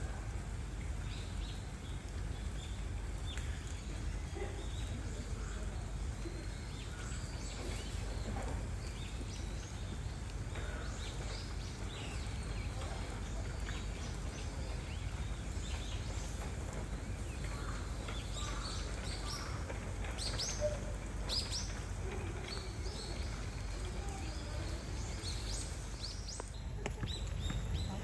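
Outdoor ambience: a steady low background rumble with birds chirping now and then, most busily about two-thirds of the way through.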